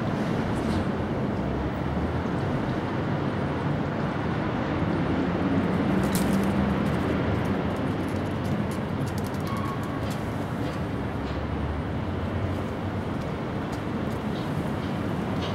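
Steady rumble of passing road traffic, swelling a little about midway as a vehicle goes by.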